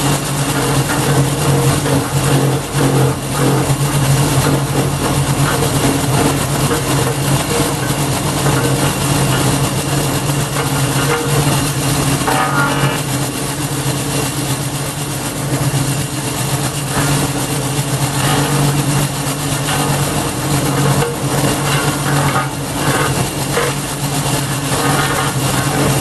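Garden wood chipper driven by a 5.5 HP Briggs and Stratton single-cylinder petrol engine, running steadily at speed, with irregular cracks and rattles from the chipper now and then. The engine runs cleanly since its blocked carburettor main jet was cleared.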